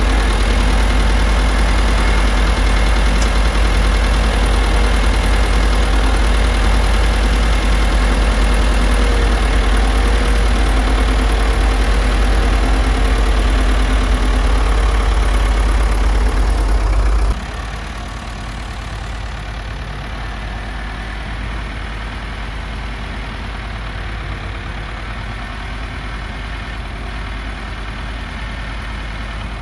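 Vehicle engine running steadily with a heavy low rumble. About 17 seconds in it drops abruptly to a quieter, steady engine drone.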